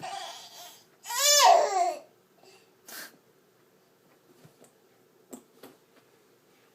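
Baby of about nine months making a breathy, grunting exhale, then about a second in a loud yell whose pitch rises and falls. A faint click and a few small noises follow.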